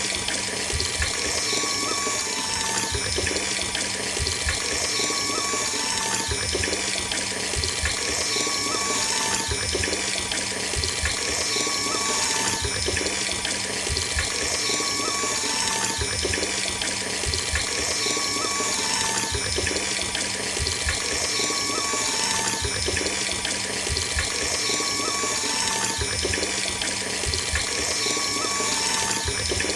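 Mini water pump running, sending a steady stream of water splashing out, over a steady low hum of its small motor.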